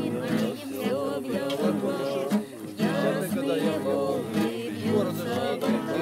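Singing voices with an acoustic guitar played as accompaniment.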